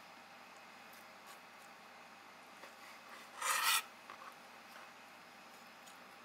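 A single short rasping scrape on a cutting board, about half a second long and midway through, as raw squid is handled and cut on it; otherwise only faint background.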